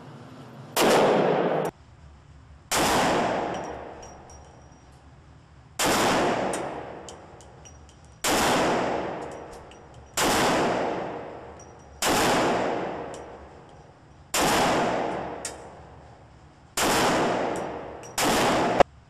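Gunshots, about nine single shots one to three seconds apart, each a sharp bang with a long reverberant tail that fades over a second or two. Two of them stop abruptly.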